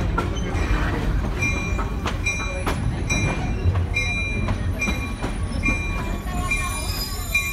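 Old railway passenger car rolling along the track: a steady low rumble with a short metallic squeak repeating at an even beat, a little faster than once a second, and scattered knocks from the wheels and car.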